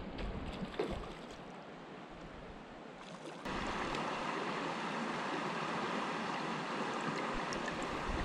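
River water running over shallow stones, with a few light knocks in the first second. About three and a half seconds in, the sound jumps abruptly to a louder, steadier rush of water.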